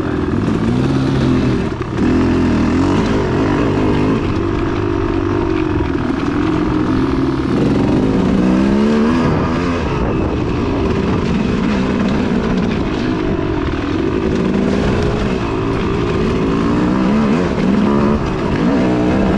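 Dirt bike engine running under load on a rough trail, its pitch rising and falling as the throttle is opened and closed.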